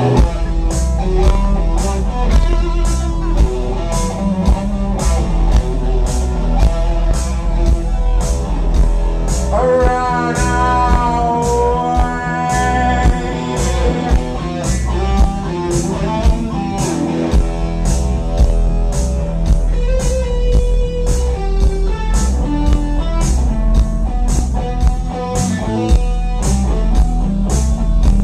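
Live rock band playing, heard through a phone mic: bass guitar and electric guitar over a steady drum beat of about two hits a second. A held guitar note rises out of the mix about ten seconds in.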